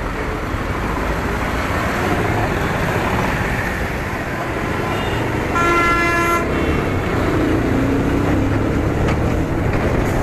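Riding a motorcycle through traffic: steady wind and road noise with vehicle engines around, and a vehicle horn honks once for about a second a little past halfway.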